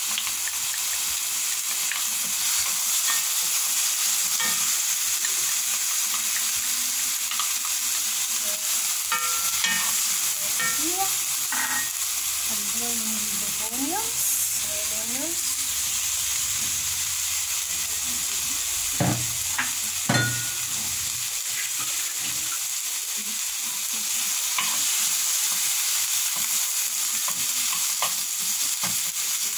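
Carrot sticks and sliced red onions sizzling steadily in oil in a frying pan while being stirred with a wooden spoon. Two sharp knocks come about two-thirds of the way through.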